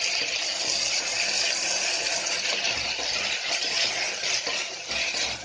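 Chopped tomatoes and small onions sizzling and crackling in hot oil in a pressure cooker, stirred with a wooden spatula, as the tomatoes are sautéed to soften.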